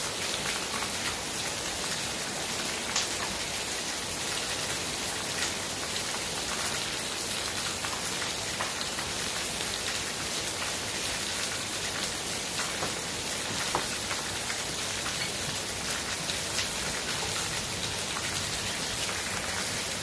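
Heavy rain pouring steadily onto a puddled dirt yard, with scattered sharper drop hits standing out from the hiss.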